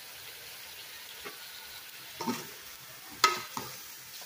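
Kitchen handling noise over a rice cooker pot of raw chicken: a spoon and a plastic seasoning sachet rustling and clicking against the pot, a few sharp clicks with the loudest about three seconds in.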